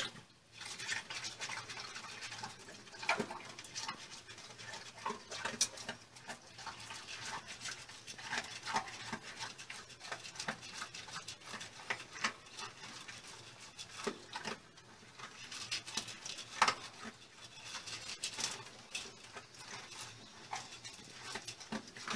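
Dog eating from a metal bowl: irregular chewing and crunching, with the odd sharper knock of teeth or muzzle against the bowl.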